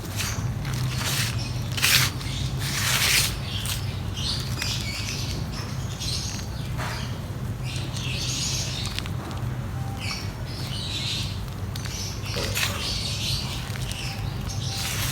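Dry mud crumbling and crackling on a sheet in irregular bursts, louder at about two and three seconds in, over a steady low hum.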